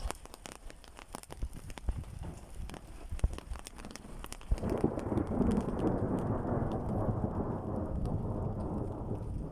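Raindrops ticking on a surface during a thunderstorm, then about halfway through a long rumble of thunder rolls in and keeps going.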